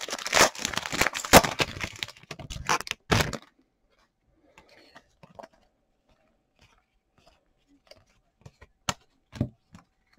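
A trading card pack's wrapper being torn open and crinkled for about three and a half seconds, followed by faint scattered clicks and taps of cards being handled.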